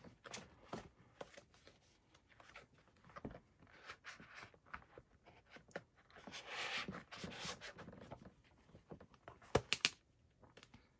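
Soft rustling and handling of a leather planner cover and the paper notebook inside it, with pages and cover sliding. There is a longer rustle in the second half and a few sharp clicks near the end.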